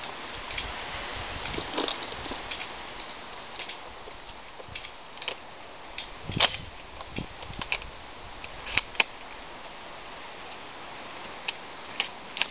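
Gunshots, small sharp cracks at irregular intervals, over a steady hiss; the loudest comes about six and a half seconds in. The shots are fired at a tree trunk to bring it down.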